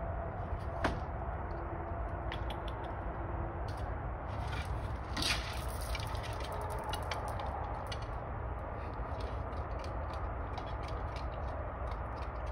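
Raccoon eating dry cat food: scattered small crunches and clicks, a sharper click about a second in and a cluster near the middle, over a steady low background hum.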